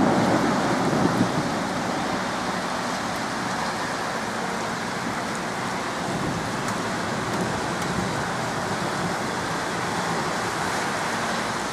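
Heavy rain pouring down steadily in a thunderstorm, with the last of a thunder rumble dying away in the first second or so.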